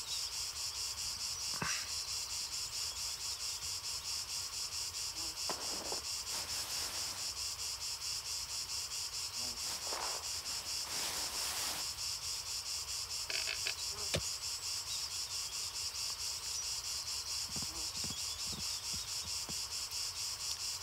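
Field insects chirping steadily in a fast, even pulsing rhythm, with a few faint knocks and taps.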